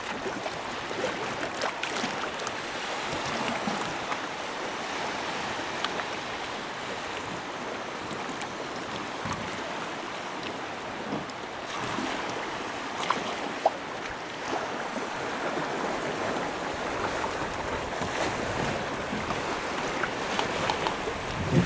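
Water rushing and splashing against a small boat's hull as it runs across open water, with wind on the microphone.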